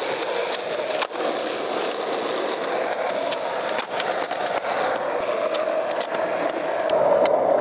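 Skateboard wheels rolling over rough asphalt with a steady grinding rumble, broken by sharp clacks of the board hitting and popping off a curb, the loudest about a second in and near four seconds.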